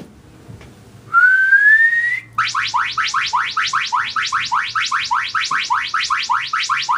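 A person whistles one rising note for about a second. About a second later the tablet's Whistle Me alarm answers: a fast, even series of rising electronic chirps, about five or six a second, running on. The whistle has been detected and has triggered the app's anti-theft alarm.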